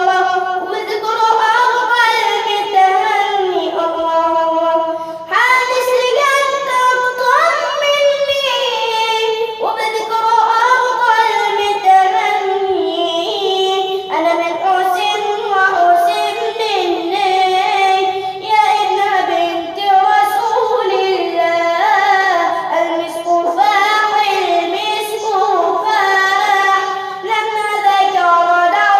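A single high voice singing an Arabic religious nasheed in praise of the Prophet, with long melismatic runs that glide and turn between notes.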